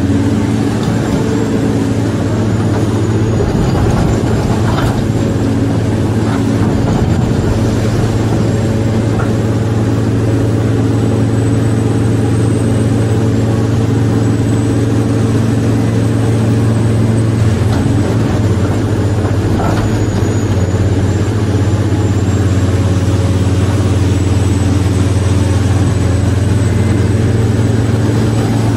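Steady engine-like drone, much like a heavy diesel idling, with a faint high whine above it. It holds an even pitch and level throughout.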